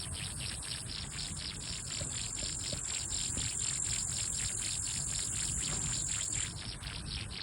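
Insects, crickets by their sound, chirping: a steady very high trill with rapid, evenly spaced chirps at about six a second, over a low rumble.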